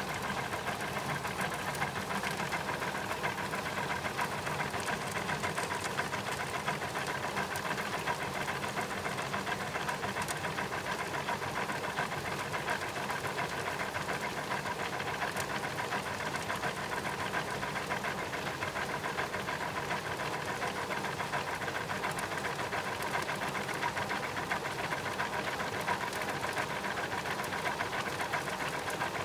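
Washing machine's belt and wheel mechanism turning, recorded close: a steady, fast rhythmic mechanical chatter with a constant whine under it.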